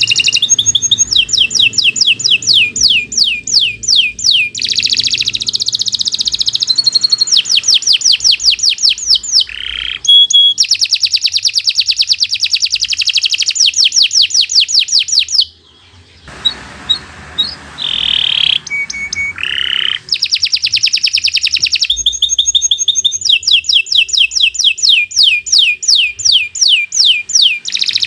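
Domestic canary singing a long, continuous song of fast repeated trills. It breaks off briefly about halfway through, gives a few separate calls, then goes back into rapid trilling.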